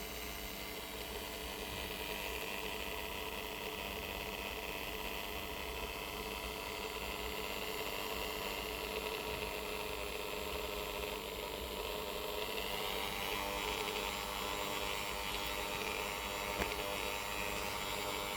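Corded rotary tool motor running with a steady whine; its pitch rises smoothly about two-thirds of the way through as the speed is turned up.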